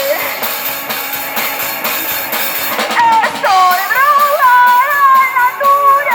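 Live rock band playing loud, with drums and guitar; about halfway through, a sung melody line comes in over the band.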